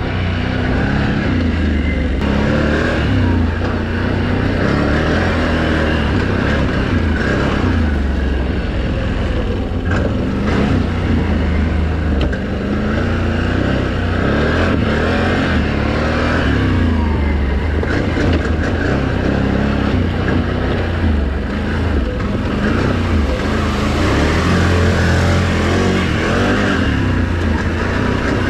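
Can-Am Renegade XMR 1000 ATV's V-twin engine running steadily while riding, its pitch rising and falling with the throttle.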